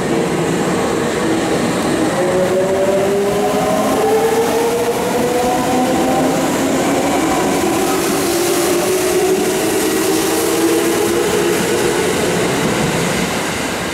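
Kintetsu electric train pulling out along the platform: its traction motors whine and rise steadily in pitch as it accelerates, over wheel and rail noise. A second rising whine comes in about halfway.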